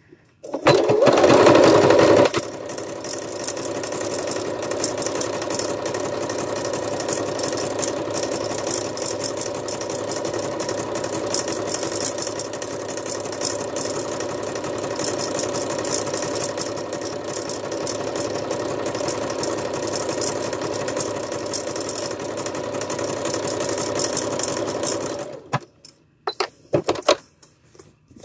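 Domestic electric sewing machine stitching through layers of fabric. It runs at a steady speed, louder for the first couple of seconds, then stops near the end and gives a few short bursts.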